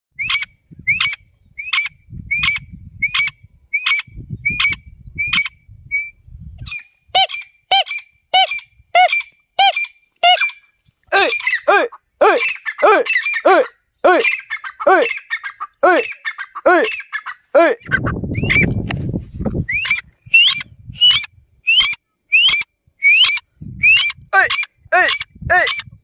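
Female grey francolin (teetar) calling: a long run of short, sharp, rising notes, about one and a half a second at first, quickening to about three a second with lower notes joining in and calls crowding over one another in the middle stretch.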